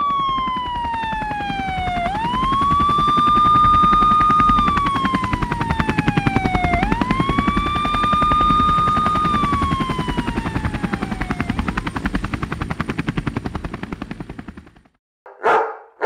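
Siren wailing, its pitch sliding slowly down and sweeping quickly back up about every five seconds, over a fast low chopping like helicopter rotor blades. Both fade away near the end, and a short noisy burst follows just before the close.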